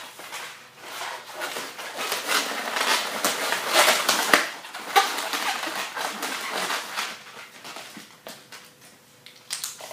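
Inflated latex twisting balloons squeaking and rubbing against each other as they are twisted and handled, in irregular bursts, going quieter near the end.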